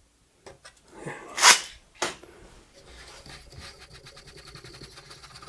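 Handling clatter, a short loud burst of noise and a sharp knock. After that, a power tool motor runs steadily with a faint high whine.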